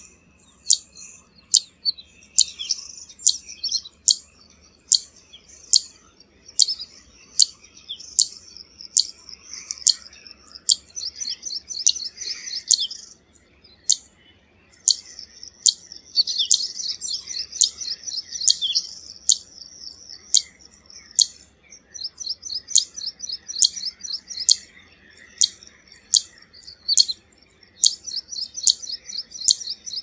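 Zitting cisticola calling: sharp, high "zit" notes repeated at a steady beat of about one and a half a second. Several stretches of fast, high twittering run over the notes.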